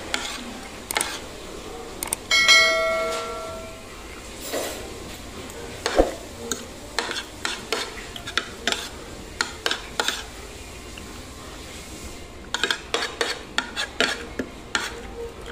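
Metal fork and spoon clinking and scraping against a plate while eating, in scattered irregular taps that come thicker near the end. About two and a half seconds in, one strike leaves a clear ringing tone for a little over a second.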